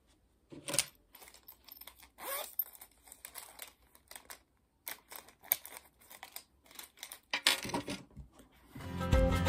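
Close-up handling at a desk: intermittent rustling and crinkling of a mesh pencil pouch and book pages, with small clicks of pens and a highlighter. Music comes in near the end.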